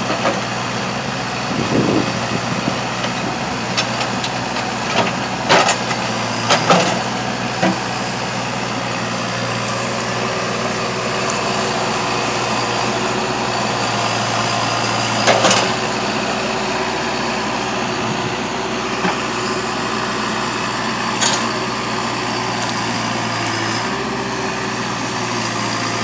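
JCB 214 backhoe loader's diesel engine running steadily under hydraulic load while the bucket pries a rotted tree stump out of the ground. Several sharp knocks and cracks sound as the bucket works the stump, a cluster a few seconds in and another about halfway through.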